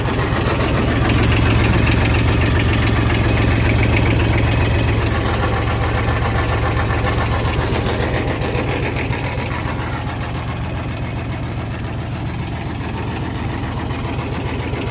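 Diesel engine of an Intimidator UTV running steadily with a fast, even chug, a little louder in the first few seconds and then easing slightly.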